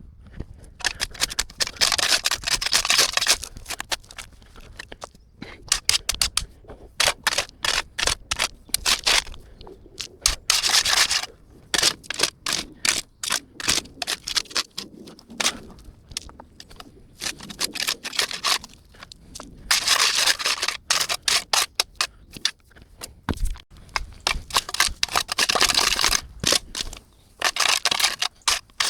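A shovel scraping and digging into dirt, in runs of rapid gritty strikes a few seconds long with short pauses between.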